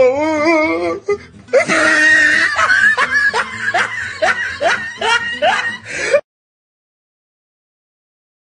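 Comic laughing-voice sound effect: a wavering pitched laugh, then a run of quick repeated rising "ha" syllables. It cuts off abruptly about six seconds in, followed by dead silence.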